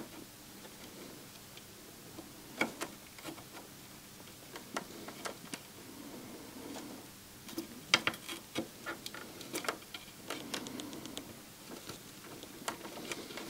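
Irregular light clicks and taps of small hand tools working on a DVD player's circuit board during desoldering, with a cluster of them about eight to ten seconds in.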